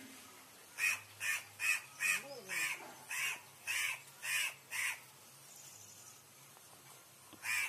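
Crow cawing: a run of about nine short, harsh caws at roughly two a second, then a pause, and one more caw near the end.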